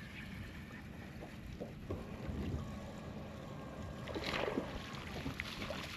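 Open-water ambience around a small fishing boat: a steady low rumble of wind and water, with a few faint ticks and a short louder rush of noise about four seconds in.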